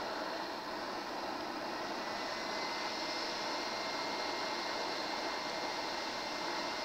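Hot air rework station blowing a steady hiss of hot air onto the laptop's BIOS chip to melt its solder and lift it off the board. A faint high steady tone comes in about two seconds in.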